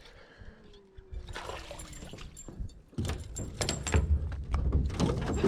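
Wind buffeting the microphone from about three seconds in, with repeated knocks and rattles in a jon boat.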